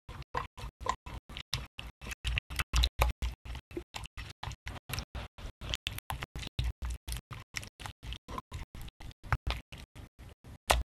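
Rapid, evenly spaced ticking, about five or six ticks a second.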